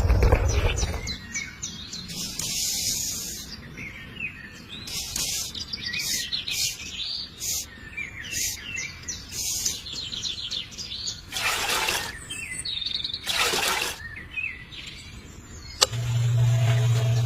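Birds chirping and singing in many short, quick calls, with a few brief rushes of noise in between. A low rumble fades out about a second in, and a steady low hum starts near the end.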